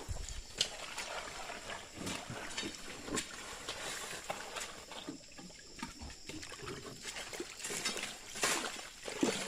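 Water splashing and trickling as it is poured by hand over a gold-sluice carpet, in irregular splashes and knocks, quieter about halfway through and briefly louder near the end.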